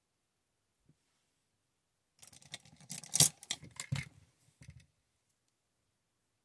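Handling noise of makeup brushes and small tools being picked up and set down: a run of clicks and rustles lasting under three seconds, with one sharp click the loudest, then quiet.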